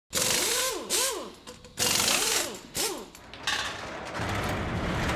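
Workshop-themed intro sound effects: four short mechanical whirring bursts that swoop up and down in pitch, then a steel roller shutter door rolling open with a low rumble that builds near the end.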